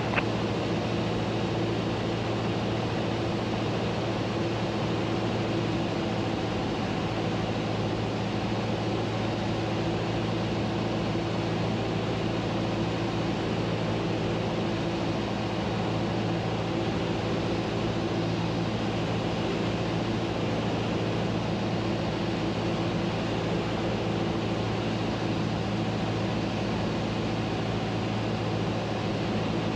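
Single-engine Cessna's piston engine and propeller droning steadily, heard from inside the cockpit, with a constant low hum and a hiss of airflow over it.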